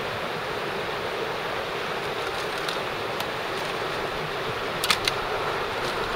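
Mountain stream rushing steadily, with two sharp clicks close together about five seconds in.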